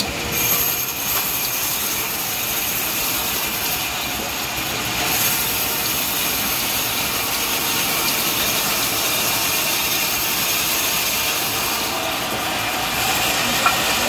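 Sawmill saw cutting through mahogany wood: a steady, high-pitched hissing whine.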